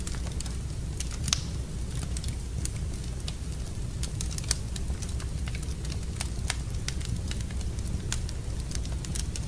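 Wood fire burning in a fireplace, crackling with irregular sharp pops over a steady low rumble. The loudest pops come about a second in and about four and a half seconds in.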